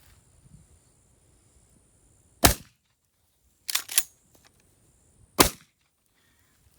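Gunfire: a loud shot about two and a half seconds in, two fainter sharp cracks close together about a second later, and another loud shot near the end.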